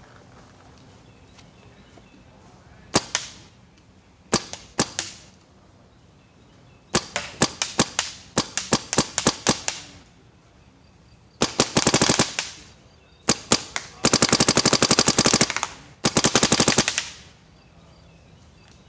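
Bob Long Victory paintball marker with the VIS inline poppet engine firing in semi-auto, capped at 15 balls per second. A single shot comes about three seconds in, then short groups of shots, then several long rapid strings near the end.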